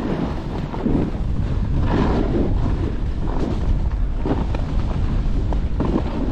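Wind buffeting the microphone at speed, with a scraping swell from edges cutting through packed, chopped-up snow about once a second as the rider turns down the slope.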